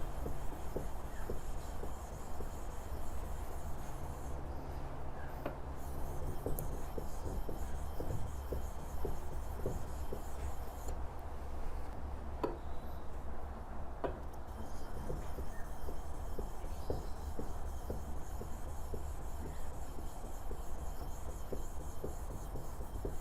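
Steel chisel blade, back side flat down, slid back and forth under light pressure on a wet Japanese finishing stone covered in Nagura slurry: a steady wet rubbing with faint scattered clicks. This is the polishing stage that takes out the scratches and burr left by the diamond stone.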